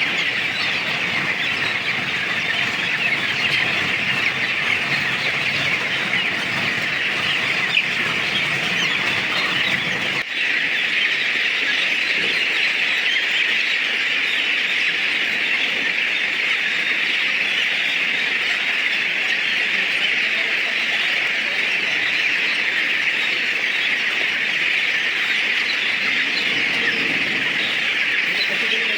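A large flock of broiler chickens in a poultry house calling all at once, a dense, steady chatter with no single bird standing out.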